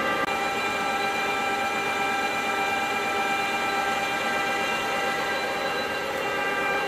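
KAMI DKM 410 L center lathe running under power: a steady mechanical hum with a high, even whine that does not change.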